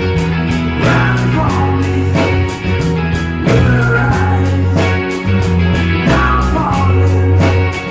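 Rock band playing live: electric guitar, bass and drums, with bending guitar lines over sustained bass notes and a steady cymbal beat about four strokes a second.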